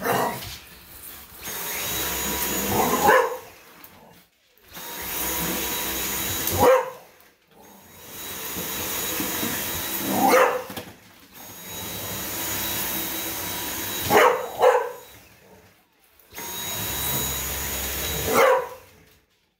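Dyson cordless stick vacuum switched on and off in runs of about two seconds, its motor running with a steady whine. An English bulldog barks at it, a loud bark or two as each run stops, about seven barks in all.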